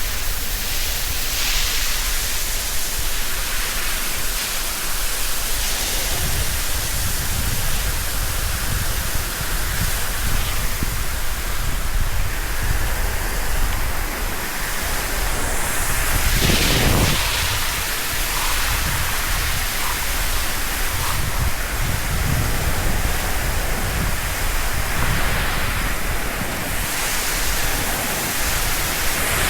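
Hose water jetting onto concrete during a milking-shed wash-down: a steady rushing hiss that swells briefly about 17 seconds in.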